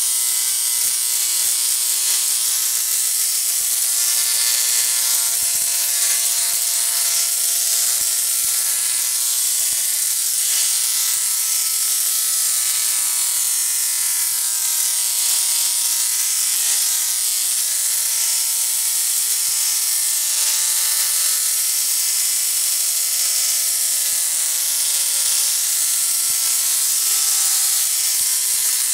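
Rotary spark-gap Tesla coil running continuously, its spark arcing between two stacked toroids: a steady, loud buzz with a hissing crackle. The pitch of the buzz is set by the rotary gap's firing rate and wanders slowly up and down.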